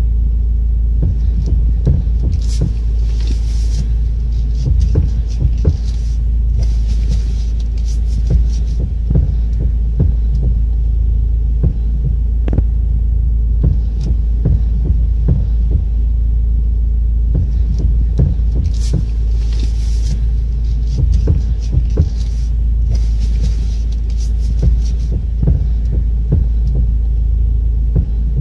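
Steering-column universal joint knocking and clicking irregularly as the steering wheel is worked back and forth, over a steady low hum. The knocks are the sign of play in the joint, whose cross (croisillon) is worn.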